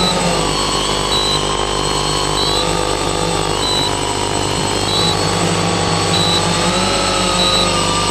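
Multirotor octocopter's electric motors and propellers whining steadily in flight, several tones drifting up and down together as the throttle changes. A short high beep repeats about once a second.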